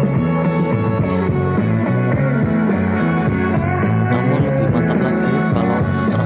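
Rock music with guitar and singing, played loud and steady through a loudspeaker cabinet driven by a homemade OCL 150-watt power amplifier built without a PCB, as a test of the finished amplifier.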